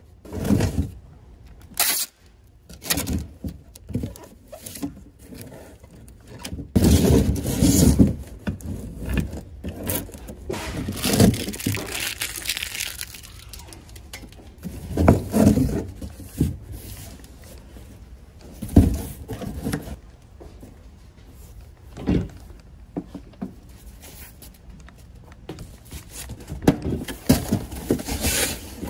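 Cardboard shipping boxes being handled: irregular rubbing and scraping of cardboard with several dull knocks, and a box's flaps being folded up near the end.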